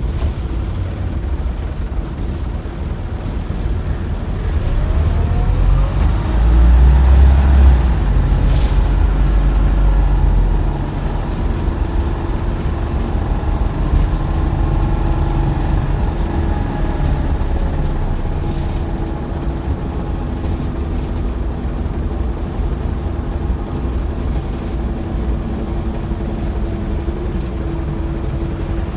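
Optare Solo bus engine and drivetrain heard from inside the bus, with a steady whine throughout. It grows louder and deeper with rising pitch about five seconds in, then settles back to a steadier run with the pitch falling later. A horrible sound that the rider takes to mean the bus is ill.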